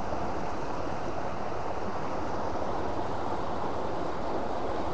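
Fast-flowing river water rushing with a steady, even sound.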